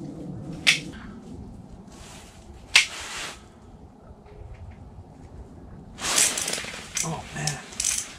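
Handling sounds from an ice-fishing rod and reel: two sharp clicks a couple of seconds apart, then from about six seconds in a run of rustling and rattling as the rod is lifted and the reel is wound in.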